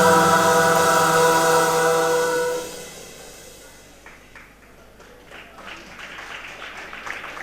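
High-school choir holding a sustained chord that fades out about two and a half seconds in, after which only faint hall noise remains.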